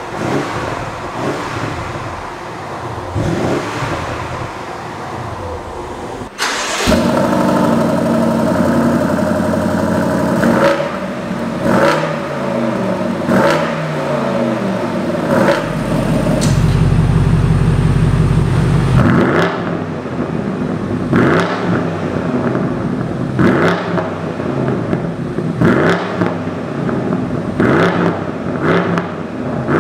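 BMW M550i's twin-turbo V8 revved while standing, first through the stock exhaust with its flaps open: several short blips. About six seconds in, a cut to the same engine on a Remus exhaust with its flaps closed, louder: rising revs, a rev held for a few seconds, then a run of quick blips.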